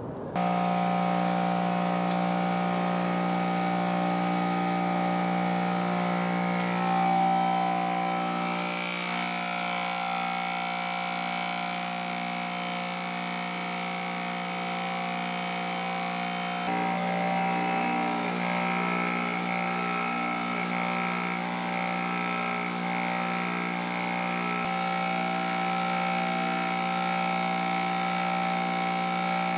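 Impact mill running steadily as a blower, a constant hum with a high whine over it as it pulverizes ore and blows it through a hose into an air cyclone. Its tone shifts a little over halfway through.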